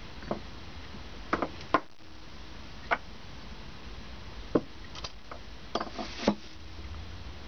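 Steel tube and small metal parts being handled and set down on a workbench: about ten light knocks and clinks at irregular intervals.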